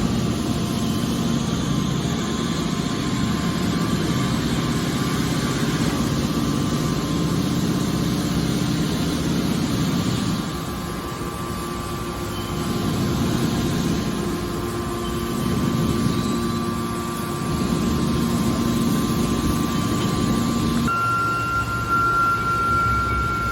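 Mobile scrap metal baler's engine-driven hydraulics running steadily. The level dips and picks up again a couple of times, and a thin, high, steady whine joins near the end.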